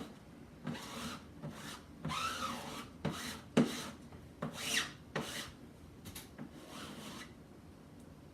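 A squeegee scraping and smearing chalk paste across a silk-screen transfer on a fridge door, in a series of separate strokes that die away about seven seconds in.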